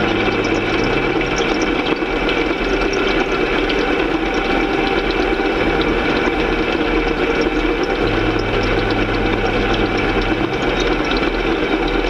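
John Deere combine harvester running steadily under load as its HydraFlex draper header cuts and carries wheat. The result is a dense, even machine drone with constant hum tones.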